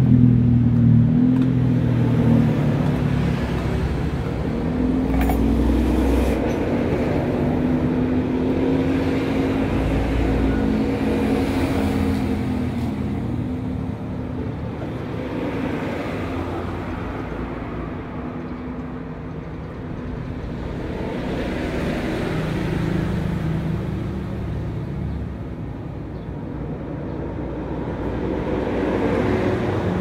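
Road traffic going by: vehicle engines running past one after another, the sound swelling and fading every several seconds over a steady engine hum.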